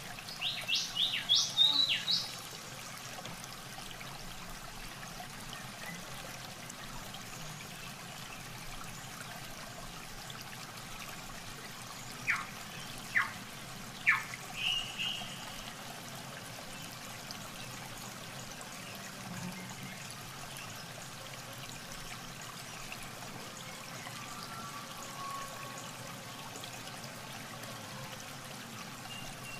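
Steady trickling, running-water noise, with a cluster of short high bird chirps near the start and a few more sharp chirps about halfway through.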